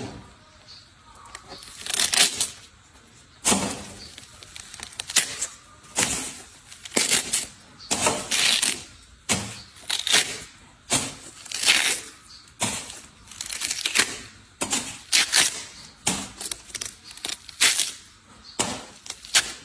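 Ripe watermelon being broken open and torn apart by hand: crisp cracks of the rind splitting and wet tearing of the juicy flesh, about one every second, irregular.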